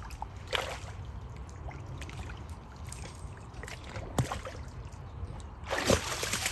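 A dog wading in shallow water, with a few short splashes and sloshes as it moves and dips its head; the loudest splash comes near the end as it flicks its head up out of the water. A steady low rumble runs underneath.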